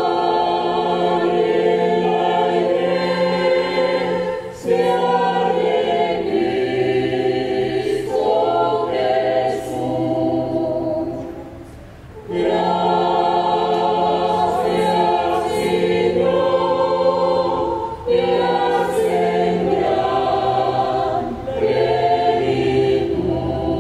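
Mixed choir singing a Christmas carol (villancico) in long sustained phrases, with a brief pause about halfway through before the next phrase.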